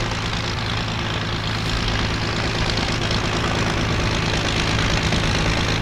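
Messerschmitt Bf 109 G-6's liquid-cooled inverted-V12 engine (Daimler-Benz DB 605) running with the propeller turning as the fighter rolls along the ground, a steady, deep engine note that grows gradually louder.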